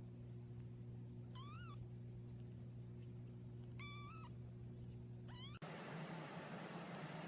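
A cat meowing three times, short calls that bend up and down in pitch, over a steady low hum. The hum cuts off suddenly after the third meow, and a soft hiss follows.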